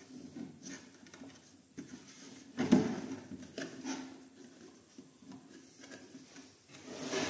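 Handling noise as decorative panel pieces are pushed and fitted into a wood-edged box on a workbench: light knocks and rubbing, with one louder knock a little under a third of the way in. A faint steady low hum runs underneath.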